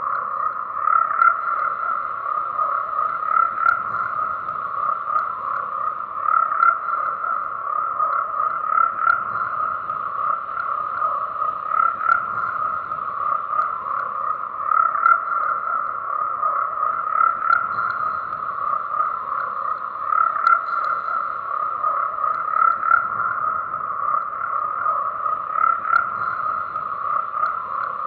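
A dense chorus of frogs calling without a break: many overlapping croaks merge into a steady, pulsing trill.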